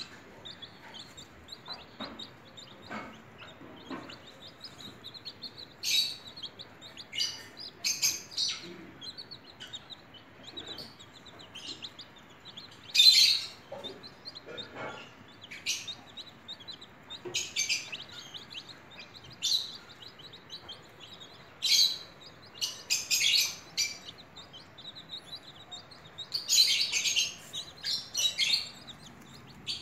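Baby chicks peeping: a steady stream of faint high chirps, broken every few seconds by louder runs of peeps, the loudest about halfway through and another long run near the end.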